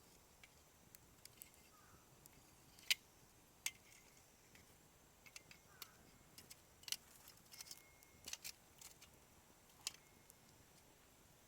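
Open wood fire crackling faintly: scattered sharp pops and snaps of burning wood, the loudest about three seconds in.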